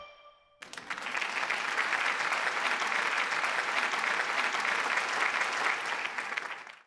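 Audience applause, a dense clapping that starts suddenly about half a second in and fades out near the end.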